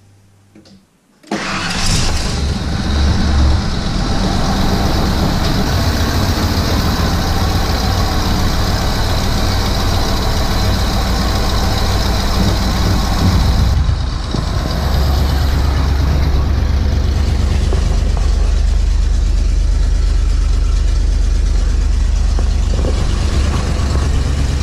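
1997 Ford F-250's 5.8-liter gasoline V8 (351 Windsor) starting about a second in, then running steadily, freshly fitted with new cylinder heads after a blown head gasket. The exhaust is noisy under the passenger side, which the owner says can probably still be heard.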